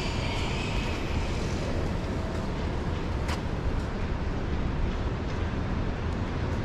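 Rainy city street ambience picked up by an action camera's microphone: a steady low rumble of distant traffic and wind on the microphone. A faint hiss comes in the first second or so, and a single sharp click about three seconds in.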